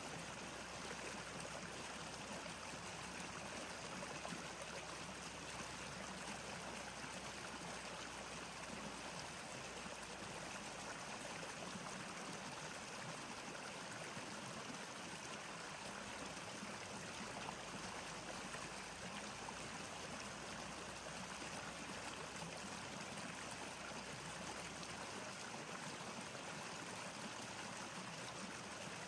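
Steady rushing of flowing water, even and unbroken, with no distinct splashes or other events.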